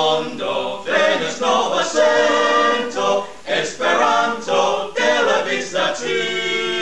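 A small mixed group of men and women singing together unaccompanied, in held phrases with brief breaks between them.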